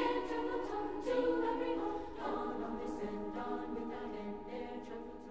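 Background choral music: a choir singing held chords that change about once a second, growing quieter toward the end.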